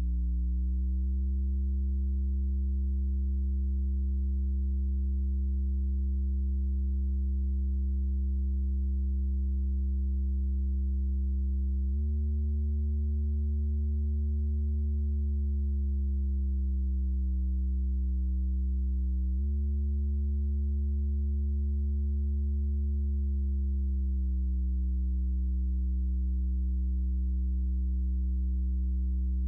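Softube Modular's Doepfer A-110 VCO running as a steady, low synthesizer drone. Its pitch jumps up suddenly twice, about twelve and nineteen seconds in, and each time glides back down a few seconds later.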